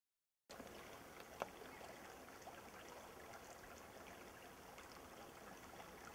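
Faint trickling of a shallow creek, starting after half a second of dead silence, with scattered small ticks and one sharp click about a second and a half in.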